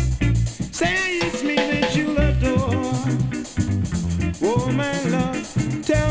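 Caribbean funk band playing on with drum kit, bass and guitar, a lead melody sliding up and down in pitch over a steady beat.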